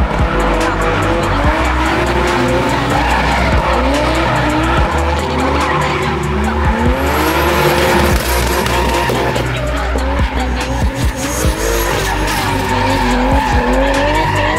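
Engines of BMW drift cars revving hard, their pitch sweeping up and down over and over, with tyres squealing as they slide. Under it all runs background music with a deep, steady bass.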